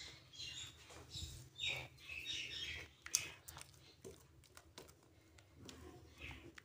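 Faint scraping of a spatula against a glass bowl as thick cake batter is poured out into a lined baking tray, with a sharp click about three seconds in.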